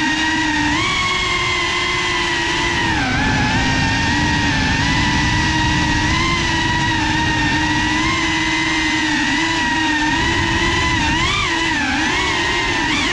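FPV quadcopter's motors and propellers whining steadily in flight, the pitch dipping about three seconds in and wavering up and down near the end as the throttle changes.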